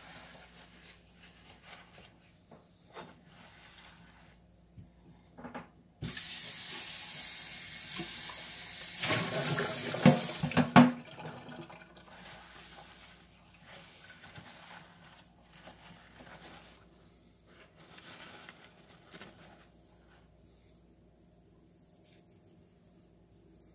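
Water tap running for about four seconds. It starts abruptly and ends with two sharp knocks, as of a glass set down or struck. Faint rustling of a paper towel wiping the table follows.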